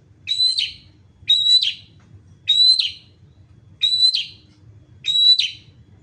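Long-tailed shrike (pentet) calling repeatedly: five short, identical calls about every 1.2 seconds, each a steady high note that ends in a sharp, harsh stroke.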